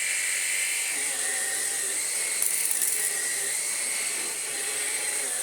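Numatic NQ100 cordless stick vacuum running with its powered floor head, the brush roller spinning: a steady high whine over a hiss. About two and a half seconds in, a brief rattling crackle.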